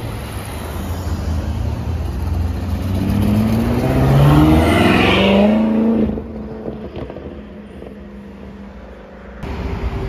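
A car accelerating hard, its engine note climbing in pitch for several seconds to a loud peak about five seconds in, then dropping away suddenly.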